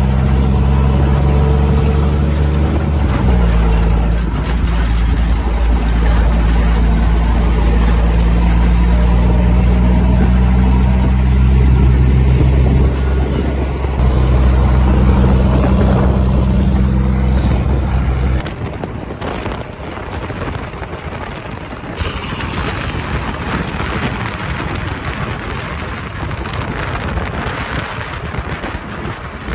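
Army truck's diesel engine droning steadily at highway speed, heard from its cab, its pitch stepping once about three seconds in. After about 18 seconds the engine drops away under a steady rush of wind and road noise through the cab, which has no windshield.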